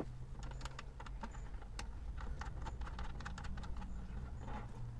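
Light, irregular clicks and taps of steel bolts and nuts being handled and fitted through a seat swivel and seat rail by hand, over a faint steady low hum.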